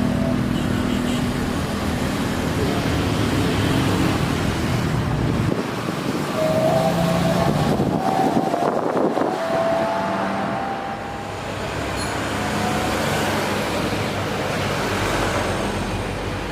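Road traffic noise: a steady run of passing vehicles.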